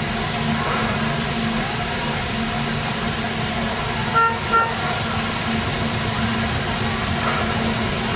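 Two short toots about half a second apart, a single clear pitched tone, about four seconds in, over a steady background drone.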